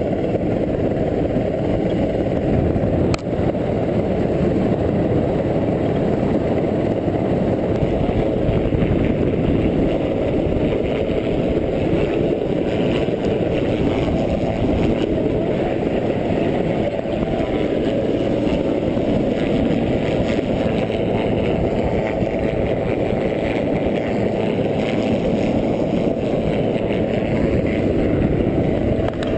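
A steady, loud low roar, with one short click about three seconds in.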